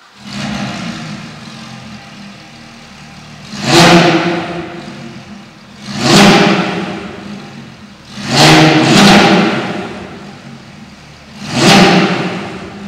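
Porsche 991.1 GT3 RS's 4.0-litre flat-six, fitted with a GMG WC center section exhaust and WC-EVO long tube headers, idling and revved in quick throttle blips. There are five blips, two of them close together, each rising sharply and falling back to idle.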